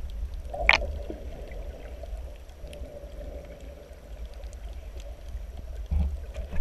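Muffled underwater ambience heard through a waterproof camera housing: a low rumble of water surging in the shallows, with faint scattered clicks. A sharp knock comes a little under a second in and a heavier low thump near the end.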